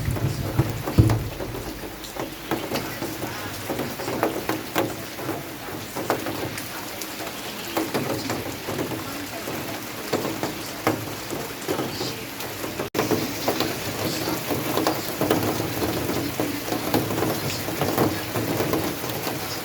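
Rain falling steadily, with many separate drops striking close by, and a low rumble in the first second.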